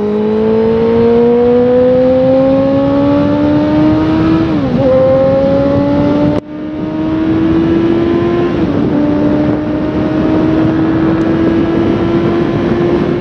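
Motorcycle engine accelerating on the highway, its pitch climbing steadily, with upshifts about five and nine seconds in, each followed by a fresh climb, over wind and road noise.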